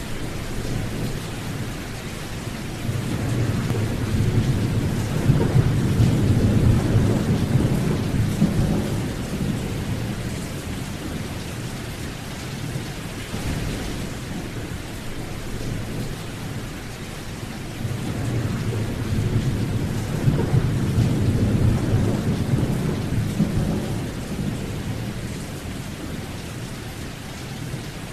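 Steady rain with two long, low rolls of thunder, one a few seconds in and another past the middle.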